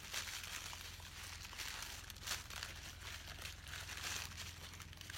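Packaging crinkling and rustling as a wrapped package is handled and opened, in short irregular bursts over a steady low hum.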